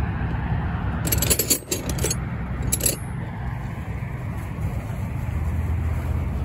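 Metal objects jangling and clinking, a second-long flurry about a second in and a brief one near three seconds, over a steady low rumble of outdoor traffic.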